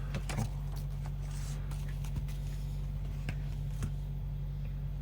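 Steady low electrical hum with a few light clicks and rustles of hands handling packaging.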